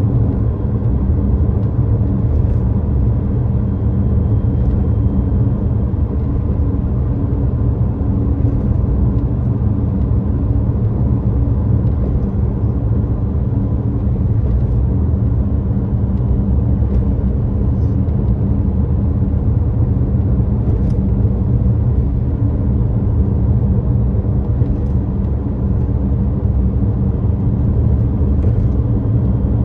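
Steady low rumble of a car driving, engine and tyre road noise heard from inside the cabin.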